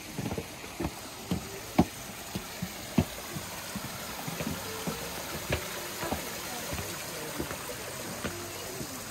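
Footsteps knocking on a hard walking path, about two a second and louder in the first half, over a steady rushing background noise.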